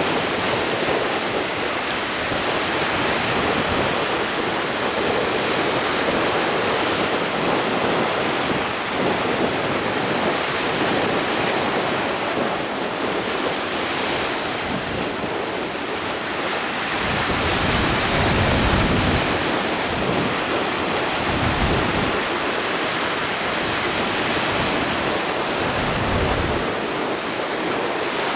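Wind and rough sea surf, a steady rushing noise, with wind gusts buffeting the microphone in low rumbles through the second half.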